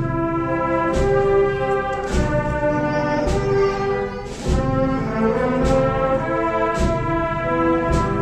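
Wind band playing a slow processional march: sustained brass and woodwind chords over a bass drum and cymbal stroke falling about once every second.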